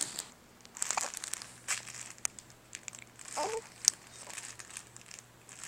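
Light crinkling and rustling with scattered small clicks, and one brief high-pitched baby vocal sound about three and a half seconds in.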